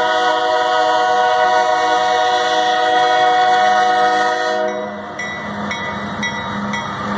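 Diesel locomotive air horn sounding one long chord, cutting off about four and a half seconds in. Then the locomotives' engine and wheel noise as they pass, with a grade-crossing bell ringing about twice a second.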